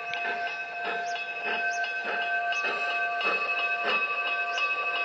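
G-scale garden-railway train running past, with a steady high whine and irregular clicking of its wheels on the track.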